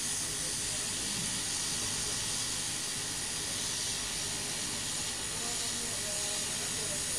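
Hot air rework gun blowing a steady hiss onto a surface-mount chip on an LED panel's control board, heating its solder for a chip replacement.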